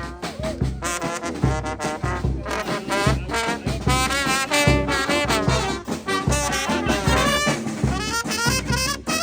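Brass band playing live: melody lines from several horns over a steady, regular low beat.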